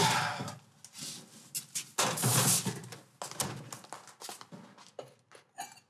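Kitchen handling sounds: a refrigerator being opened and a can taken out and handled, a run of short knocks and clicks with two louder noisy stretches, at the start and about two seconds in.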